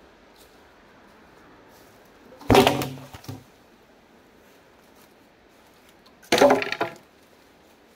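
Wooden logs dropped onto a pile, knocking and clattering twice about four seconds apart, each impact followed by a brief rattle as the wood settles.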